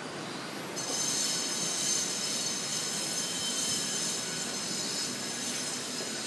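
A steady, shrill, high-pitched squeal made of several tones at once, over a background hiss. It starts about a second in.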